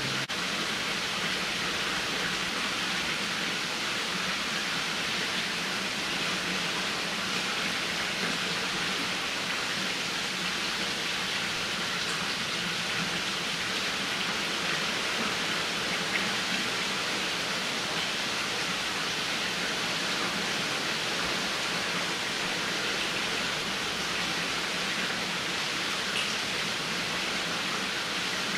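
A steady, even hiss that does not change, with a faint click about sixteen seconds in.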